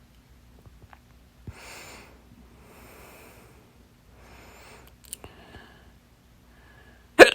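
Three soft breaths, then a single loud, sharp hiccup near the end, sudden and very short.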